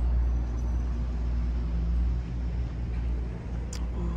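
Steady low rumble of street traffic on a town street, a vehicle's engine among it, easing a little about two seconds in.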